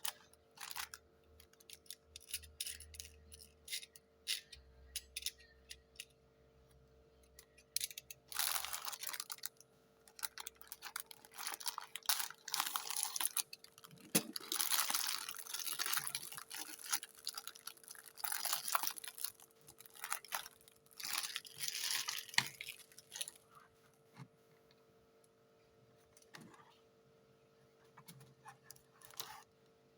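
Hands handling toy packaging: sharp clicks and taps, then about fifteen seconds of plastic and cardboard rustling and tearing, then a few more clicks.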